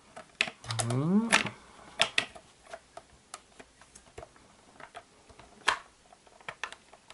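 Clear plastic timing-belt cover of a Haynes V8 model engine kit being pressed into place by hand: a run of irregular light plastic clicks and taps, the sharpest about five and a half seconds in. A short hum of voice about a second in.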